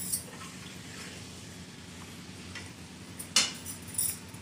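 Spoon mixing watered masala paste in a small steel bowl, with a few sharp metal clinks; the loudest comes about three and a half seconds in. A low steady hum runs underneath.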